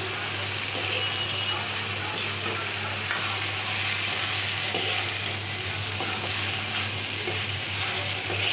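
Carrot, radish and green chilli strips sizzling in oil in a steel kadhai while being stirred in with red chilli powder, turmeric and salt, a steady frying hiss. A steady low hum runs underneath.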